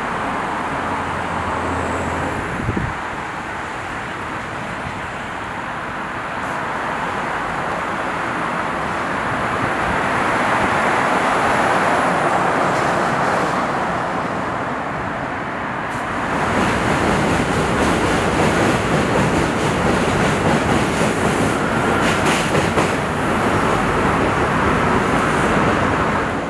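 Train running on the rails, with a steady rushing noise that swells about ten seconds in. From about sixteen seconds in it turns louder, with a rattling clatter of wheels over the track.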